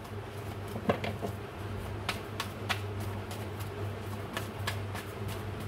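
Tarot cards being shuffled and handled in the hands, an irregular run of soft card clicks and flicks. A steady low hum runs underneath.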